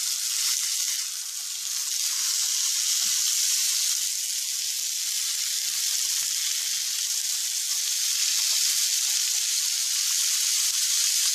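Marinated chicken fillets sizzling in butter on a ridged grill pan, a steady frying hiss, as they are turned over with tongs partway through cooking.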